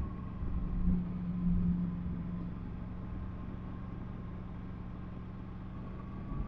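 Yamaha MT-10 SP's inline-four engine running steadily at low road speed, a constant low hum with a faint rumble of wind and road noise, swelling slightly in the first couple of seconds.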